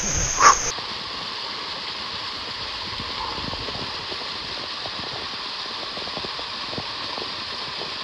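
Steady rush of falling water from a waterfall, an even hiss with no changes. About half a second in there is one short loud sound.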